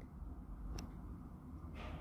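Low steady room hum in a pause of speech, with a single faint click about a second in and a soft breath near the end.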